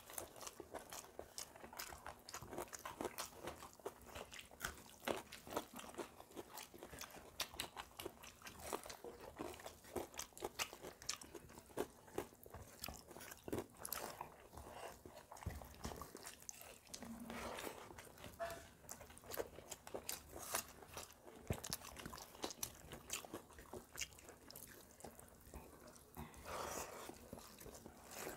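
Two people eating rice and fried brinjal by hand: close-up chewing and mouth sounds, a dense, irregular stream of sharp clicks and smacks.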